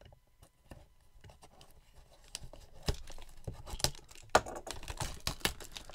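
Packaging of a trading-card blaster box being torn open and crinkled: irregular quick crackles and snaps that grow busier from about two seconds in, the sharpest about four seconds in.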